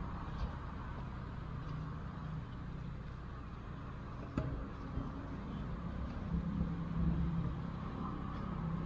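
Steady low outdoor rumble, with a single short click about four and a half seconds in.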